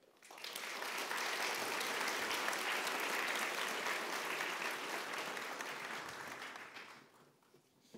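Audience applauding at the end of a talk, starting right away, holding steady, and dying away about seven seconds in.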